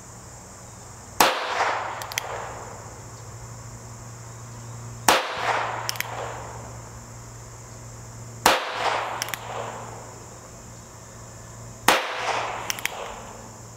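North American Arms 22S mini revolver firing CCI CB .22 Short rounds: four sharp shots about three and a half seconds apart, each followed by a few quieter clicks. Every round fires, with no light primer strikes.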